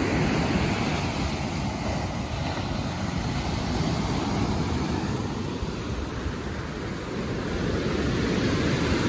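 Surf breaking and washing up a sandy beach, a steady rushing that swells and ebbs, over a low rumble of wind on the microphone.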